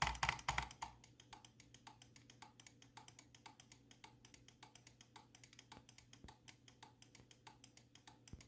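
Computer keyboard keys being tapped in a fast, light run of clicks, several a second, over the faint steady hum of a running desktop PC.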